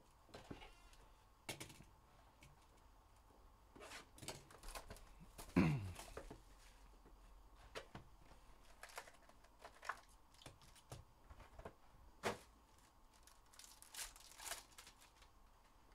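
Hands opening a sealed 2022 Limited football hobby box and its silver foil-wrapped pack: scattered taps, rustles and tearing of cardboard and foil. One louder sliding sound with a steeply falling pitch comes about five and a half seconds in.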